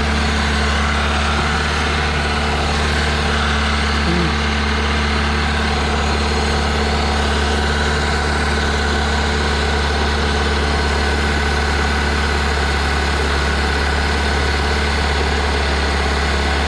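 Toyota 1ZZ-FE 1.8-litre inline-four engine idling steadily on its first run after a rebuild.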